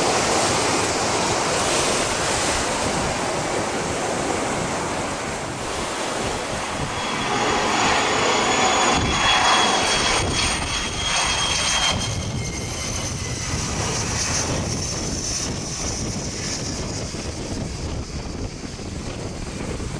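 Jet aircraft engines on landing approach: a loud, steady rush from an MD-80-series airliner's JT8D engines, then a Cessna Citation X business jet passing low on final approach, its turbofans adding a high steady whine about seven to eleven seconds in before the noise fades.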